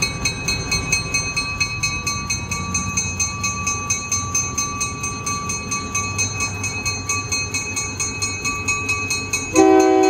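Diesel locomotive's bell ringing steadily, about two to three strikes a second, over the low running of its engine as it rolls slowly by. About nine and a half seconds in, the locomotive's air horn sounds, a loud chord of several notes and the loudest thing here.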